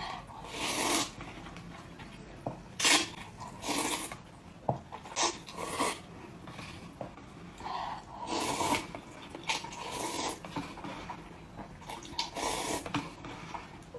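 Close-miked eating sounds: wet chewing and slurping in irregular bursts, with a few sharper clicks.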